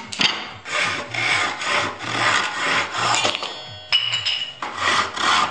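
Hand saw cutting through wood in quick back-and-forth strokes, about two a second, sawing off a glued-on wooden handle. The strokes break off a little past halfway, with a sharp click, then start again.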